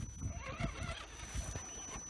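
An RC rock crawler's electric drive whines as the truck climbs a steep rock step, with a thin steady high-pitched whine. Scattered low knocks come from the tyres and chassis on the stone.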